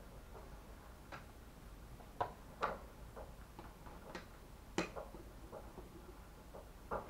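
Irregular light clicks and taps from make-up cases and brushes being handled and set down on a table, a dozen or so ticks at uneven intervals, a few of them sharper.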